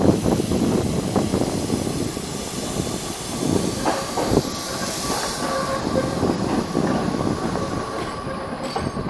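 Articulated low-floor tram passing close on curved track: steady running rumble and hiss, a couple of wheel knocks over the rail joints about four seconds in, and a thin wheel squeal from the curve that grows from about halfway.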